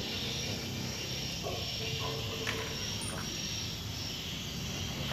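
Steady high-pitched hiss of insects with a low hum underneath, and a few faint clinks of small metal parts being handled.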